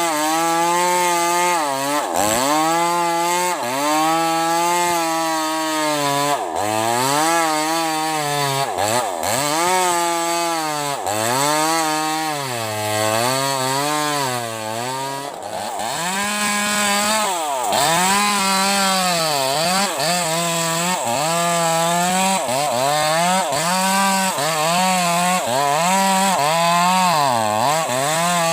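Bosco 5880 two-stroke chainsaw cutting sengon wood at high revs. Its engine pitch sags and recovers every second or two as the chain loads up in the cut.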